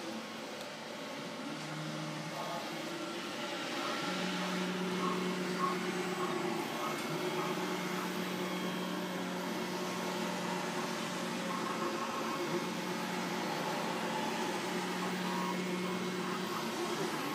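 Moving-head light fixture (575 W) running its automatic program: the pan and tilt motors whine in steady tones that step in pitch and switch on and off every few seconds as the head moves, over a steady hiss of its cooling fans.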